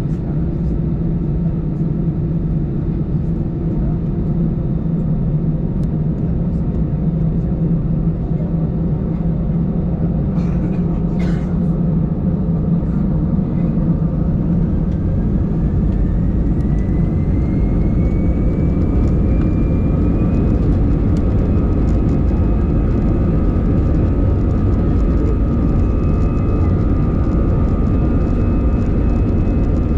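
Airbus A319 jet engines heard from inside the cabin: a steady low rumble at taxi power. About halfway through, a rising whine enters as the turbofans spool up, then settles into a steady higher whine.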